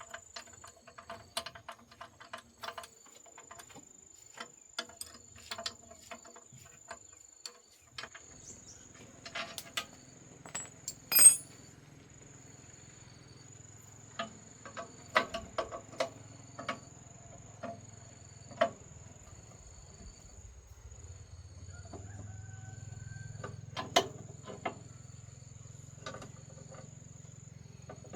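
Scattered clinks and knocks of tools on metal machine parts during repair work, with one sharp, ringing clank about eleven seconds in. A steady high insect trill runs underneath.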